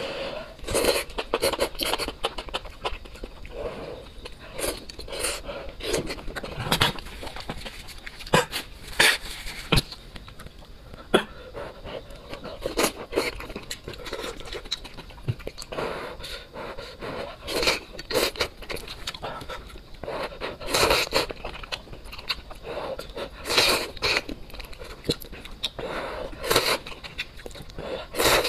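A person slurping luosifen rice noodles off chopsticks and chewing, in short sucking slurps that come at irregular gaps of one to three seconds.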